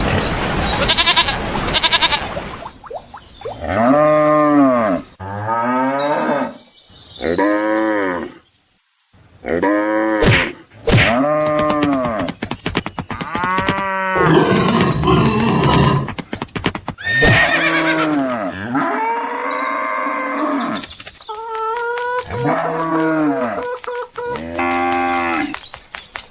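Cattle mooing: about ten long calls, each rising and then falling in pitch, with noisy stretches between them.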